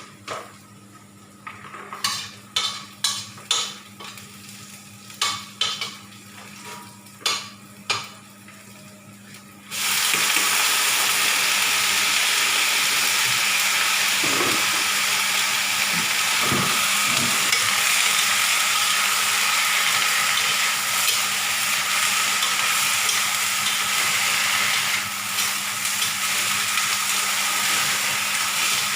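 Several sharp clinks and knocks of utensils on cookware, then about ten seconds in a loud sizzle starts abruptly as food goes into hot oil in a pan, and the frying carries on steadily.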